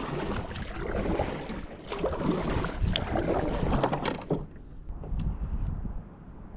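Kayak paddle strokes splashing and dipping in the water as the kayak is turned, with a few light knocks; it grows quieter after about four seconds.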